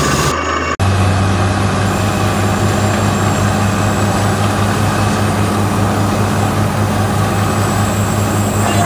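Water-well drilling rig's engine running steadily under a loud hiss of air and cuttings blowing from the borehole. The sound breaks off for an instant just under a second in, then carries on.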